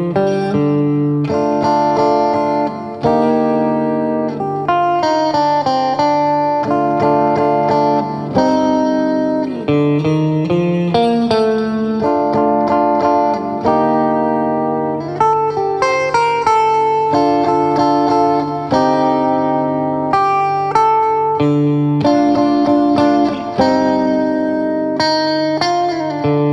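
Solo guitar playing a Phrygian-mode piece: picked notes and chords over a held low note that runs through the whole passage.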